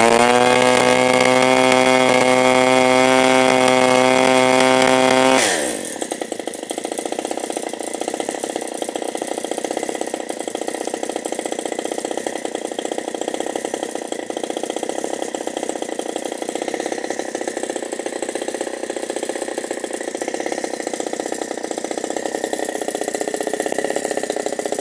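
A 17cc petrol two-stroke model aeroplane engine swinging a propeller on a test stand. It holds high revs at a steady pitch for about five seconds, then is throttled back sharply and idles evenly.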